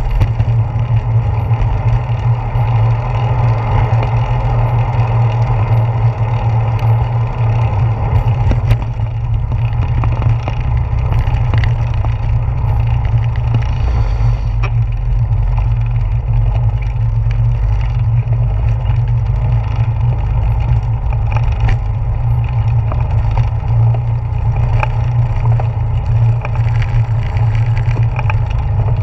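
Steady low rumble of wind and ride vibration on a handlebar-mounted action camera's microphone while a bicycle rolls along a paved path and then a wooden boardwalk, with light ticks and knocks scattered through.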